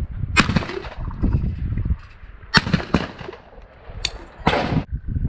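Two shotgun shots about two seconds apart, fired at a pair of clay targets, over a low rumble of wind on the microphone. A sharp click and a short rush of noise near the end as the gun is handled.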